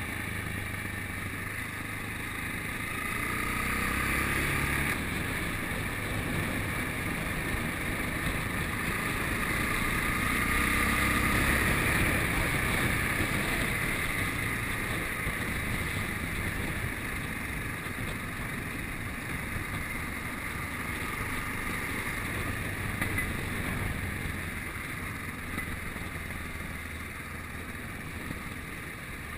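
Yamaha Ténéré single-cylinder motorcycle engine running on the move, heard from the bike's own handlebar mount with wind noise over the microphone. The engine pulls harder twice, a few seconds in and again near the middle, its note rising each time.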